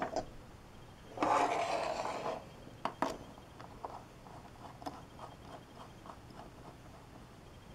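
Hands handling an opened LED bulb: a rustling scrape lasting about a second, then a couple of sharp clicks and a few faint taps.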